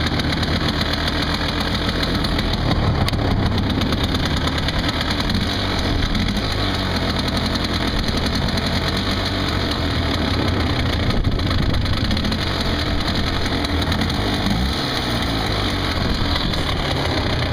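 1991 Polaris Trailboss 350L's 350cc liquid-cooled two-stroke engine idling steadily on a cold start, warming up.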